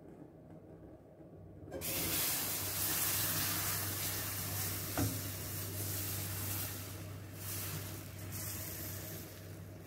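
Thin flour-and-milk batter poured into a hot nonstick frying pan, starting to sizzle suddenly about two seconds in, with the sizzle slowly dying down. A single light knock about halfway through.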